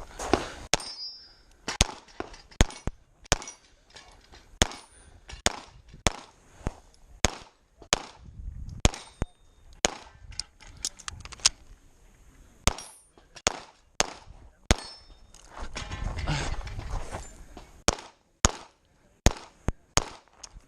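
A competition pistol fired rapidly through an IPSC stage: about thirty shots, mostly in quick pairs, with short breaks between strings. A few shots are followed by a brief metallic ring.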